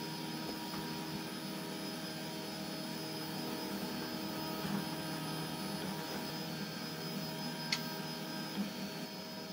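Steady electrical hum in a small room, with several constant tones, broken once by a sharp click about three-quarters of the way through and a fainter tick near the end.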